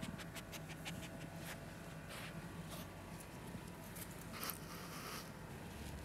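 Italian greyhound making faint breathy huffs: a short one about two seconds in and a longer one near the five-second mark, with light clicks in the first second and a half.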